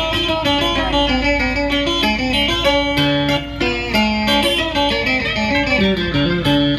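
Guitar playing a plucked melody of many short notes in an instrumental passage, with no singing.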